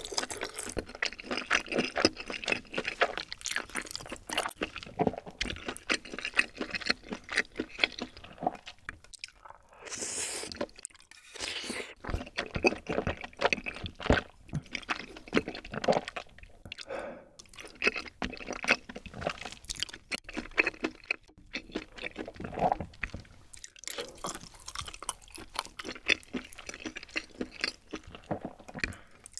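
Close-miked chewing of rosé tteokbokki rice cakes and glass noodles in creamy sauce. It comes as runs of wet, sticky mouth clicks and smacks with a few short pauses.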